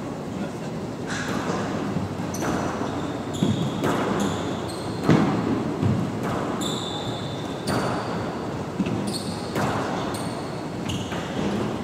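Squash rally: the ball smacks off rackets and the court walls every half second to a second, with short high squeaks from court shoes on the wooden floor between the hits.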